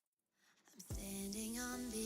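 Near silence, then background music starts about a second in: a song with a held, sung-like melody over a low beat.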